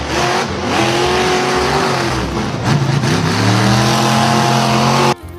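Car engine sound effect revving: the pitch drops about two and a half seconds in, climbs back up and holds, then cuts off suddenly near the end.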